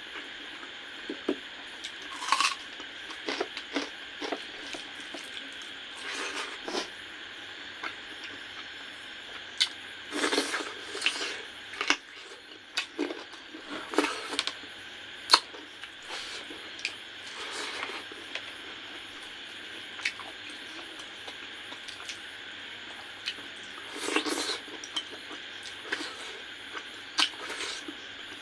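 A person eating spicy chicken curry with rice: wet squishing, chewing and mouth smacks, with many short sharp clicks over a steady background hiss.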